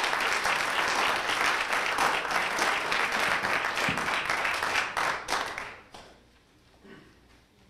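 Audience applauding, stopping a little over two-thirds of the way through, followed by a couple of faint knocks.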